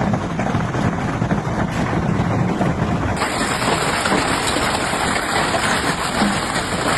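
Severe storm: a dense, steady hiss of torrential rain and hail, with wind buffeting the microphone and a low rumble underneath. About three seconds in the sound changes abruptly, as at a cut to another recording of the storm.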